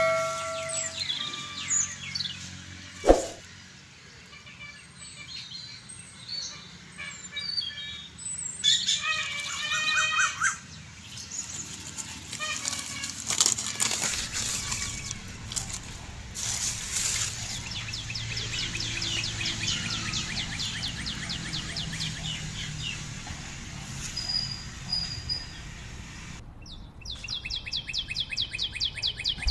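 Background music with birds chirping, a ringing chime right at the start and a single sharp click about three seconds in.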